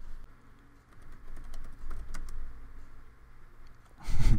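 Typing on a computer keyboard: faint, irregular key clicks, with a louder burst near the end.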